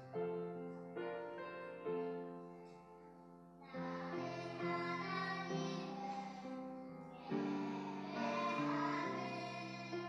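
Piano playing a gentle introduction, then a group of children starts singing a slow worship song together over it about four seconds in.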